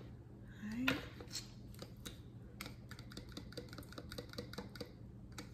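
Metal spoon stirring melted honey butter in a small bowl: a quick, irregular run of light clicks and taps of the spoon against the bowl. A short rising hum from a voice comes about a second in.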